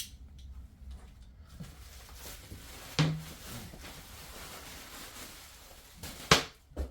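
Handling knocks of solid-wood cabinet parts being unpacked. There is a sharp knock about three seconds in and a louder one near the end, with quieter rustling and shuffling between.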